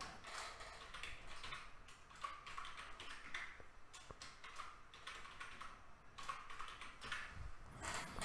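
Faint typing on a computer keyboard: a run of quick keystrokes as a password is typed in and then typed again to confirm it.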